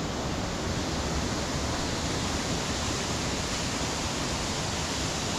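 A brook's water rushing in a steady, unbroken wash.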